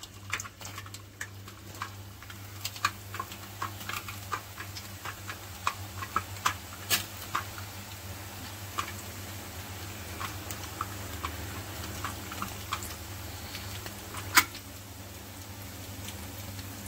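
Omapodi (gram-flour sev) strands deep-frying in hot oil: a steady bubbling hiss with scattered crackles and pops, thickest in the first half. A single sharp click about 14 seconds in, over a low steady hum.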